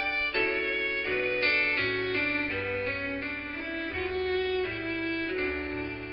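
Instrumental intro of a country karaoke backing track in the key of D: a melody line played over steady accompaniment, with no singing yet.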